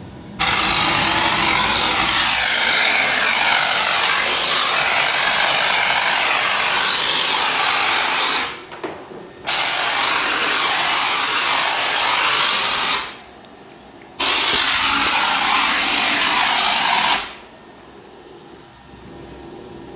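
Tornador Z-011 compressed-air foam gun spraying in three long bursts of loud hissing air, each starting and stopping abruptly.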